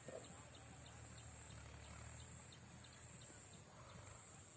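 Faint evening insect chorus: a steady high-pitched hiss with short chirps repeating about two to three times a second, over a low rumble.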